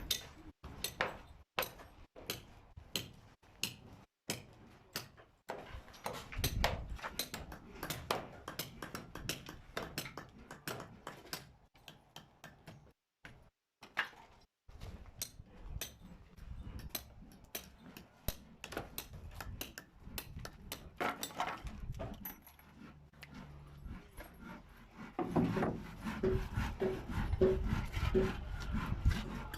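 Irregular sharp knocks and taps of work on timber roof formwork, one to a few a second. Near the end a continuous rasping sets in.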